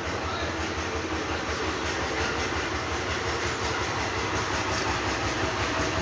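Epson inkjet printer's mechanism running with a steady mechanical noise.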